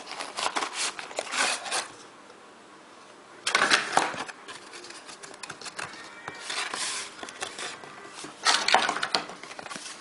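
Earphone packaging being opened and handled: irregular rustling and clicking with a short lull about two seconds in, and louder bursts around four seconds and near the end.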